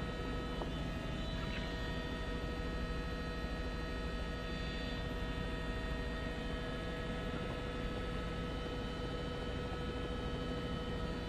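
Steady drone inside a helicopter cabin: a low rumble with a constant whine made of several steady tones, running at an even level.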